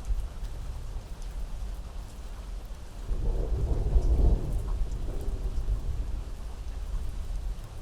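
Steady rain falling, with a roll of thunder that swells about three seconds in, peaks around four seconds and rumbles away over the following seconds.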